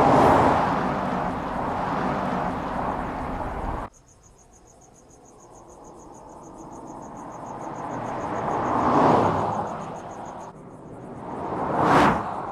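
2014 Audi RS7 Sportback's twin-turbo V8 driving past at speed: a loud pass at the start that cuts off abruptly about four seconds in, then the car approaching and passing about nine seconds in, and again, loudest, near the end. In the quieter stretch between, insects chirp in a steady rapid pulse.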